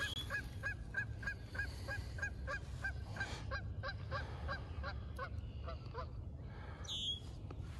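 Geese honking in a fast, even series of about three or four calls a second, growing fainter until they stop about six seconds in.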